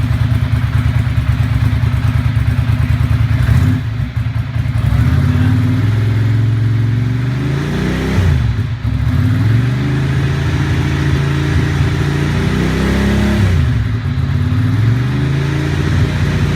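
Ducati Monster 620's air-cooled L-twin running through Dan Moto Carbon GP exhausts with the baffles installed, loud and steady. The engine pitch drops sharply and climbs back three times, about four, eight and a half and thirteen and a half seconds in.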